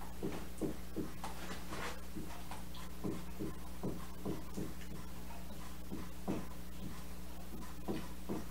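Dry-erase marker being written across a whiteboard: short strokes, about two a second, unevenly spaced, over a steady low hum.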